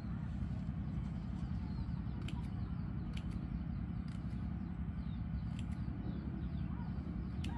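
Pliers snipping and twisting wire on a wire-mesh fish trap: a few sharp metal clicks about one to two seconds apart, over a steady low rumble.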